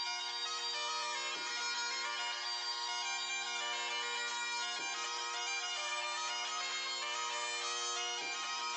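Bagpipe music: a steady drone under a fast piping melody, the drone dipping briefly about every three and a half seconds.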